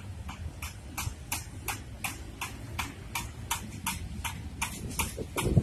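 Even, sharp metallic ticks about three a second, as from a railway crossing warning bell ringing for an approaching train, over a low rumble, with a loud low thump near the end.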